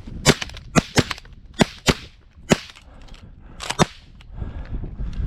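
A volley of about seven shotgun blasts from several hunters' shotguns firing at a goose, spread over about three and a half seconds, some shots coming in quick pairs.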